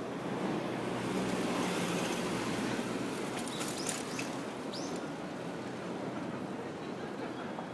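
Steady outdoor rushing noise of wind on a phone microphone and city background, with a few brief high squeaks about three and a half to five seconds in.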